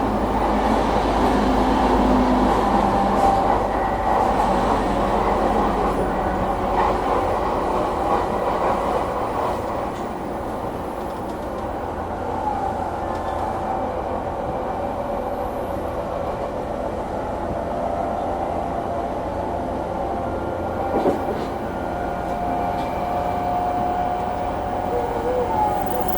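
Inside an E233-2000 series electric train's motor car running on the line: steady rolling rumble of wheels on rail with a humming, whining tone, and a few light clicks. At mid to high speed this car gives a growling abnormal noise, which may be the humming heard here.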